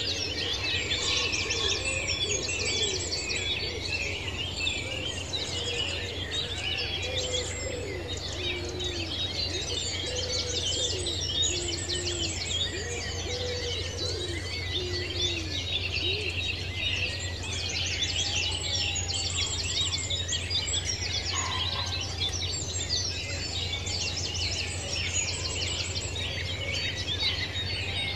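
Dense chorus of many birds chirping and trilling, with some lower, shorter calls mixed in during the first half, over a steady low hum.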